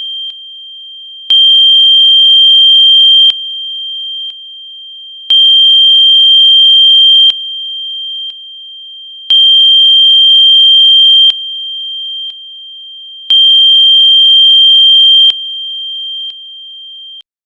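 An electronically generated Rife-frequency sine tone, a steady, high-pitched pure tone near 3 kHz. It steps through a repeating four-second cycle: about two seconds loud with faint lower and higher tones joining, then a softer second and a softer one still. The tone cuts off shortly before the end.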